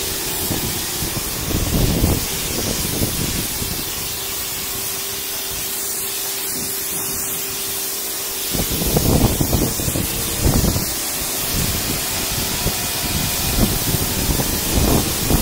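Kärcher home pressure washer spraying a high-pressure water jet in a steady hiss, with a steady hum underneath. The spray grows louder and rougher in surges, most strongly about nine to ten seconds in.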